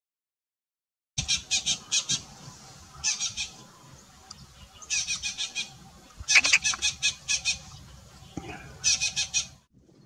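Green jay calling in rapid runs of repeated short notes, about six notes a second, in five bursts starting about a second in; the fourth burst is the longest and loudest.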